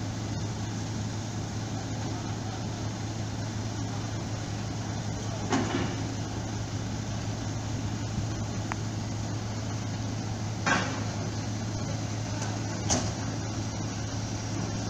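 Steady low drone of heavy diesel machinery during ferry loading, with three sharp metallic clanks a few seconds apart as a loaded trailer rolls over the steel bow ramp.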